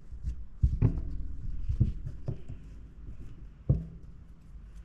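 Fabric lining being folded in half by hand: soft rustling with several dull knocks of handling spread through.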